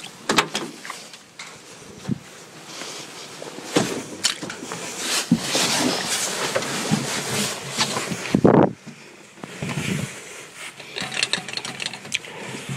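Handling noise from getting into an old 4x4: the door opening, rustling and scuffing as someone climbs into the seat, then a loud door slam about eight and a half seconds in, after which it goes quieter inside the closed cab.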